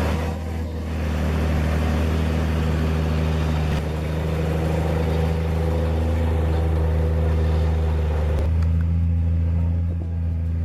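Heavy truck engine running at steady revs under load, with a shift in its sound about eight and a half seconds in.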